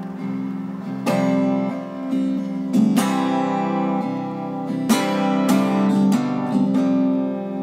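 Background music: an acoustic guitar strumming chords, with no singing.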